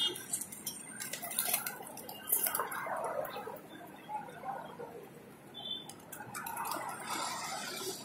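A large flock of feral pigeons: wings clatter in bursts as birds take off and land, over cooing from the flock.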